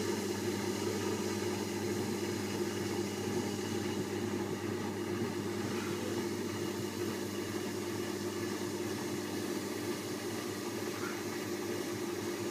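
Premier wet grinder running steadily while kneading dough. Its motor hums evenly as the stainless-steel drum turns the dough against the plastic kneading attachment.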